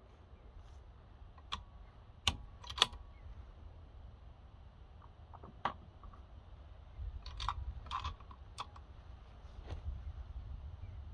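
Faint, scattered sharp clicks and clacks of handled gear over a low rumble, with two louder ones about two to three seconds in and a quick run of clicks around eight seconds.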